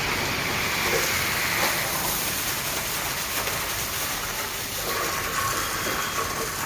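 Water spraying under high pressure from a fire hydrant hose: a steady hiss.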